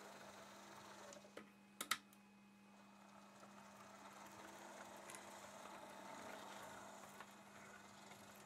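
A Heljan OO gauge Class 52 model diesel locomotive running on test track at about 30% power, very quiet: a faint whir from its gearing and driveline, swelling a little midway over a low steady hum. A few sharp clicks come about one and a half to two seconds in.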